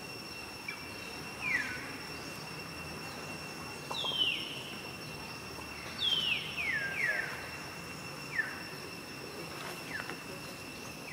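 Newborn macaque crying: short, high squeals that each fall in pitch, one at a time early and then a quick run of several about six seconds in. They sound over a steady high hum.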